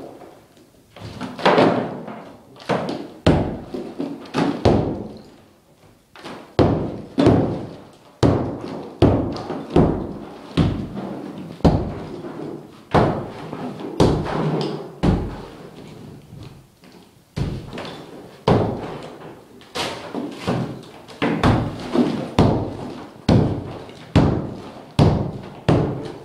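Club hammer pounding a plastered masonry wall, breaking chunks out of it. The blows come roughly one a second, with a few short pauses.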